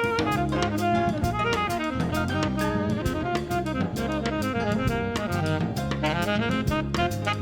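Background jazz music: a saxophone melody over drums and bass, with a steady beat.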